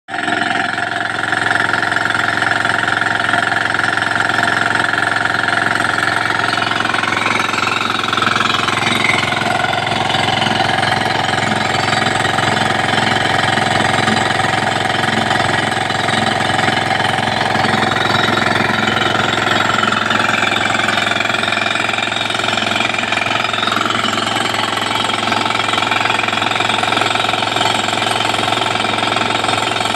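A 9 hp self-start engine driving a 5 hp air compressor, running continuously at a steady, loud level with a rapid mechanical hammering. A few of its overtones shift slightly in pitch about 8 and 20 seconds in.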